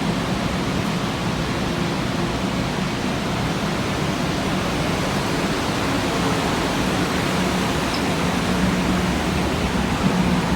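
Trane make-up air unit running: a steady rush of moving air with a low, even hum underneath.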